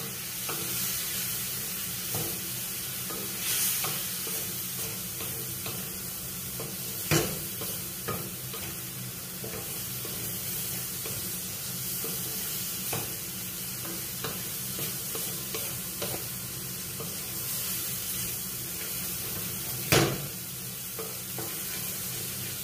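Ampalaya (bitter gourd) frying in a pan with a steady sizzle while a wooden spatula stirs it, scraping the pan. A few sharper knocks of the spatula on the pan, one about a third of the way in and the loudest near the end.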